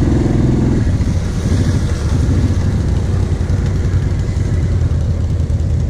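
Quad (ATV) engine running under the rider, easing off about a second in from a higher, even note to a lower, rougher steady run.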